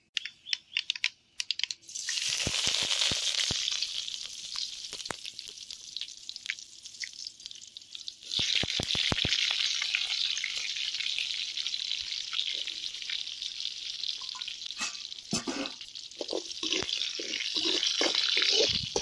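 Green chillies and curry leaves sizzling loudly in hot oil in a metal kadai: a tempering for curd rice. Scattered crackles give way to a steady hiss about two seconds in, which dies down and surges again about eight seconds in, with ladle clicks through it.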